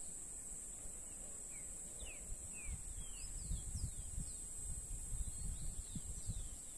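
Rural outdoor ambience: a steady high-pitched insect drone, with a bird giving a string of short, downward-sliding chirps from about a second and a half in. Gusts of wind buffet the microphone with a low rumble from a few seconds in.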